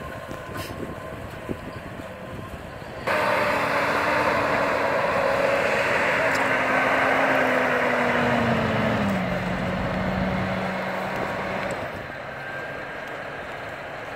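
Massey Ferguson tractor's diesel engine running while it drives across tilled ground. About three seconds in the sound turns much louder and closer, and the engine note then falls steadily before dropping away near the end.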